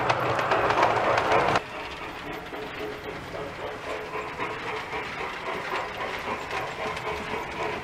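G scale model freight cars rolling past on garden-railway track, wheels rattling on the rails. About one and a half seconds in, the sound drops abruptly to a quieter, steady rattle with fine clicking.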